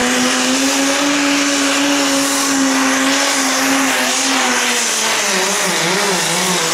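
Pro Stock pulling tractor's turbocharged diesel engine under full power, hauling the weight sled. Its steady high engine note falls and wavers from about five seconds in, the engine pulling down under the load.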